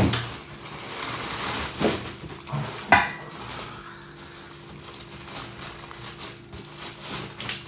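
Plastic packaging rustling and crinkling as a parcel is unwrapped and a clothing item is drawn out of its plastic bag, with one sharp clink about three seconds in.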